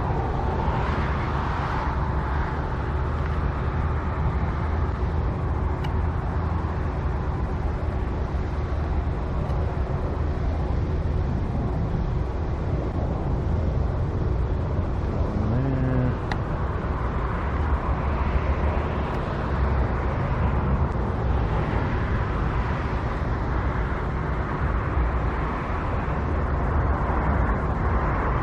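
Steady road traffic noise, cars running by as an even hum with no single vehicle standing out.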